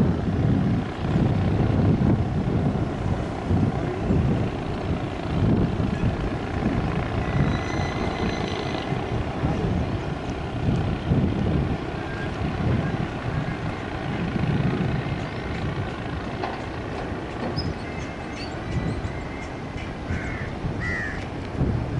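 Low, gusty rumble of wind on the microphone mixed with the distant engine noise of an ATR 72 turboprop airliner on approach and landing. A couple of short bird chirps come near the end.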